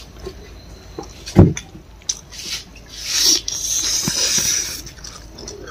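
Close-miked eating: a person chewing food, with small mouth clicks. There is a single low thump about a second and a half in, and a louder stretch of chewing noise near the middle.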